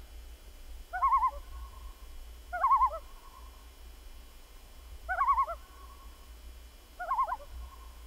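A bird's wavering, quavering call, repeated four times at intervals of about two seconds, over a steady low hum.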